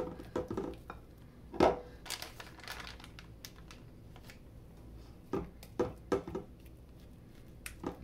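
Spatula scraping and knocking against a mixing bowl and a plastic zip-top bag crinkling as a thick banana and yogurt mixture is scooped into the bag. The knocks come irregularly, the loudest about one and a half seconds in and a cluster of them around five to six seconds.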